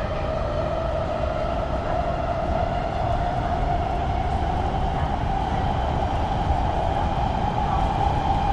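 Los Angeles Metro Rail train running, its motor whine rising slowly in pitch as the train gains speed, over a steady low rumble.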